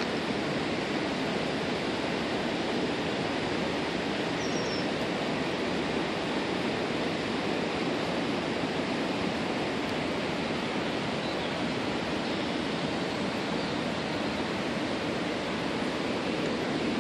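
Steady, even rushing noise that does not rise or fall, with one brief high chirp about four and a half seconds in.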